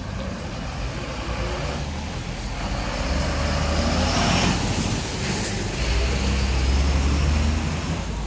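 Street traffic: a bus and a delivery truck driving past at close range, with a low engine rumble. The rumble grows louder about halfway through and again near the end.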